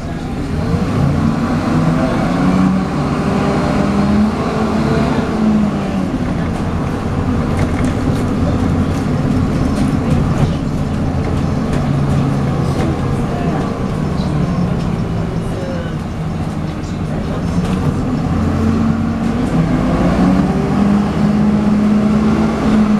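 Onboard sound of a MAN 18.240LF bus's six-cylinder diesel engine under way, with the vacuum-cleaner-like whine that enthusiasts call "hoovering". The pitch rises as it gathers speed in the first few seconds and again near the end, and eases off in between.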